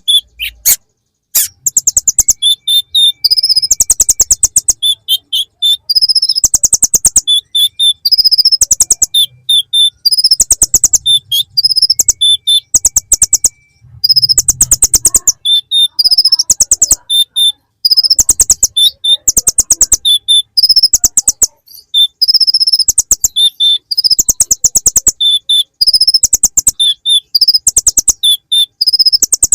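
Konin (kolibri ninja sunbird) singing a song full of ciblek (bar-winged prinia) phrases: loud, rapid trills of sharp chips in bursts of about a second, mixed with high thin chirps, repeating with short pauses.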